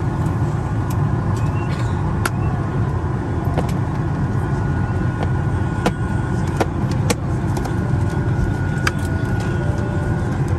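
Steady low rumble of a moving vehicle heard from inside, with scattered clicks and knocks over it.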